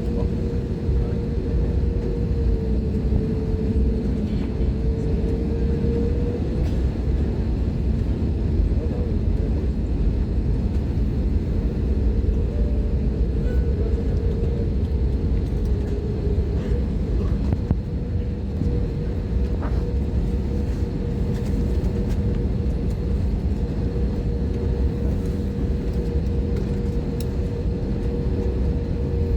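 Airliner cabin noise before takeoff: a steady low rumble with a constant hum running through it.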